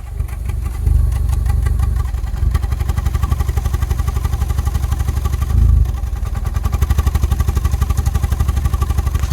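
Volkswagen Fox 1.4 engine idling roughly, its note pulsing unevenly; it grows louder over the first second and briefly swells a little over five seconds in.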